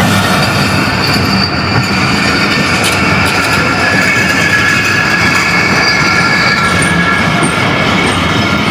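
Passenger train rolling along steel rails, its wheels squealing in several steady high-pitched tones.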